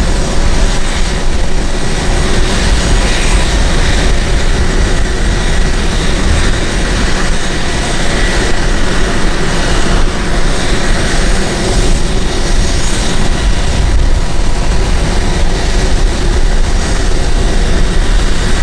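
EA-18G Growler's twin General Electric F414 turbofan engines idling on the ground, canopy open: a loud, steady jet noise with a faint high whine.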